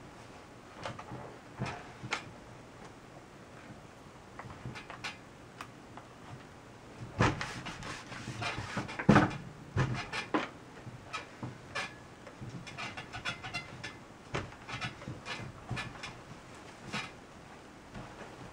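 Fabric rustling as it is handled and smoothed on an ironing board, with scattered clicks and knocks. A louder cluster of knocks and rustles comes around the middle, while a clothes iron is lifted and pressed onto the seam.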